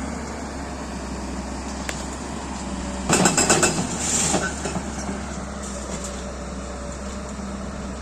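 JCB 205 excavator's diesel engine running steadily while demolishing a concrete building, with a burst of crashing and clattering about three seconds in that lasts just over a second.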